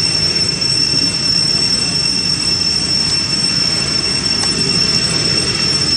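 Steady, high-pitched chorus of cicadas, holding the same pitch without a break, over a low, noisy rumble.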